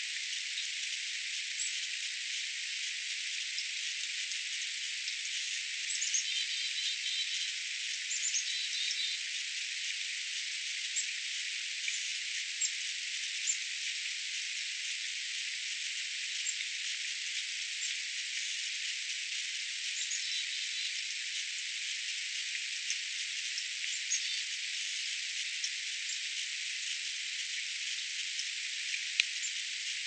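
Small wild songbirds giving short, high, scattered chirps and calls, with a few quick runs of repeated notes, over a steady high hiss.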